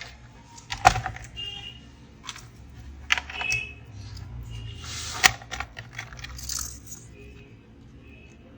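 Small clicks, taps and clatter of laptop parts being handled as a display screen is fitted and connected, with two louder knocks, about a second in and about five seconds in.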